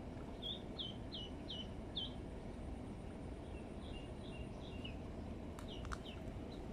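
Duckling peeping: runs of short, high, falling peeps, about two or three a second, in three bursts, over a steady low background rumble.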